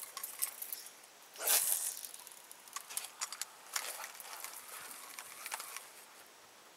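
Fishing tackle being handled: irregular light clicks and rustling, with one louder brief swish about a second and a half in.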